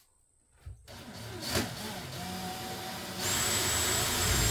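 Power drill starts about a second in and runs steadily with a motor whine, drilling at freshly marked spots. About three seconds in it gets louder and higher-pitched as it speeds up.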